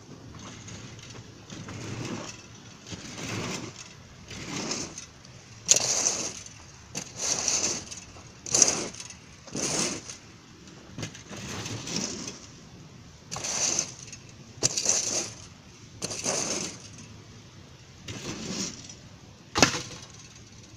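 A garden rake scraping over loose sandy soil in repeated strokes, roughly one a second, smoothing the ground flat.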